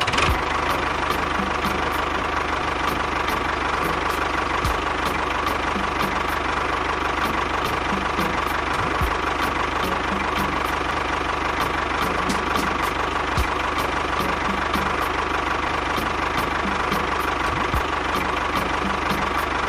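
A small motor running steadily with a regular clicking and a steady whine, from the mechanism of a miniature DIY model bulldozer.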